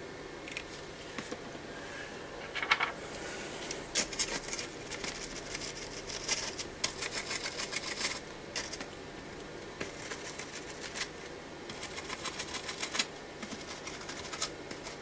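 Cloth scrubbing back and forth over a soldered circuit board to clean it up after soldering: several bursts of fast, rough rubbing strokes.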